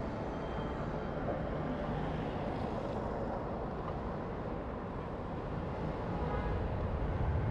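Street traffic noise of motorbikes and cars passing at a roundabout, with a low rumble that grows louder near the end.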